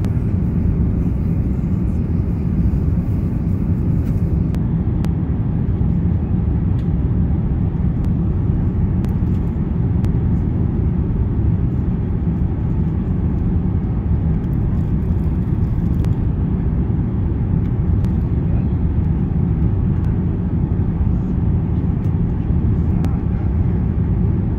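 Steady low rumble of engine and air noise inside an Airbus A350-900 passenger cabin, with a few faint ticks.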